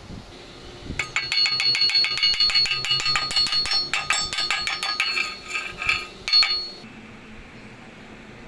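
A fast run of sharp metallic clicks with a ringing tone, about ten a second, lasting some five seconds and ending with one louder hit.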